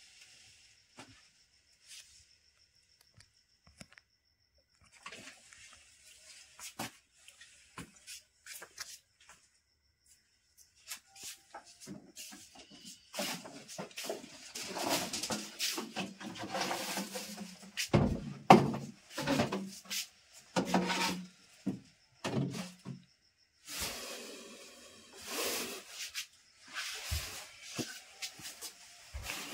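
Irregular knocks, scrapes and rustling of objects being handled and shifted in a small room. The sounds start faint and sparse, then come thick and fast in the second half, the loudest knock about eighteen seconds in.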